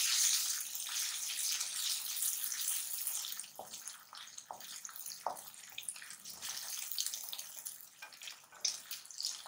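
Onions and ginger-garlic paste sizzling in hot oil in a metal karahi, stirred with a wooden spatula that scrapes and knocks against the pan now and then. The sizzle is stronger for the first few seconds, then dies down.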